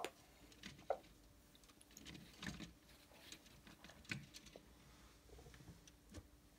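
Near silence, with a few faint, scattered small clicks and light rustles of hands handling thin wires and small electronic parts on a cutting mat.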